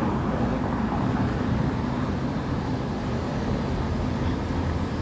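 Steady low rumble of city road traffic, with no single vehicle or event standing out.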